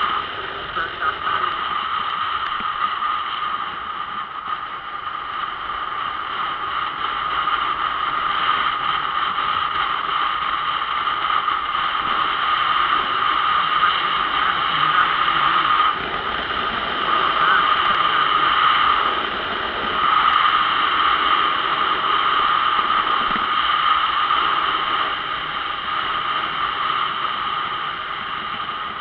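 Steady wind noise rushing over the microphone of a camera mounted on a moving motorcycle, with brief dips in level about 16 and 19 seconds in.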